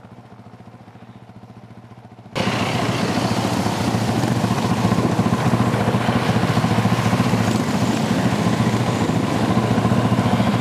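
Several dirt bike engines running as the bikes ride through a deep river crossing, with water splashing and spraying. The sound is fairly faint at first, then jumps suddenly much louder a little over two seconds in and stays loud.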